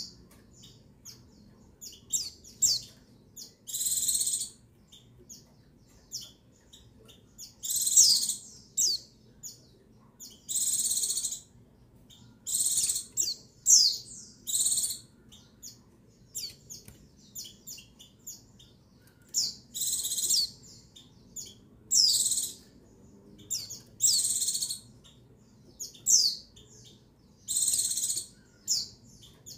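Female white-eye (pleci) calling with quick high chirps and thin downward-sliding notes, and a longer, louder call every two to three seconds. This is the female's call that bird keepers play as a lure to rouse male white-eyes into song.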